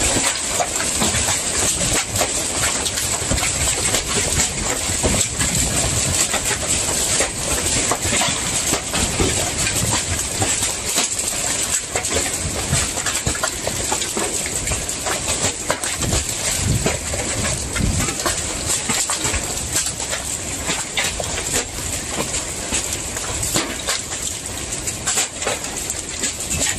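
Hailstorm: heavy rain hissing, with a dense, irregular clatter of hailstones striking hard surfaces.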